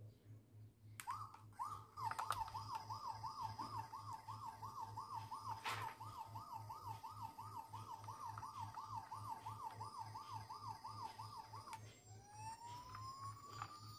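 Toy police car's electronic siren sound: a fast yelping warble, about three sweeps a second, starting with a click about a second in, then switching near the end to a slow rising wail.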